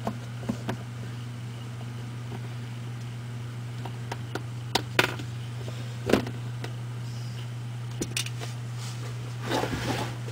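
A steady low hum, with a few scattered light clicks and taps and a short rustle about nine and a half seconds in.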